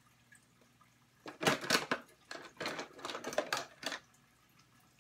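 Plastic makeup containers clattering and knocking together as someone rummages through a pile of makeup: a couple of seconds of irregular rattles starting about a second in.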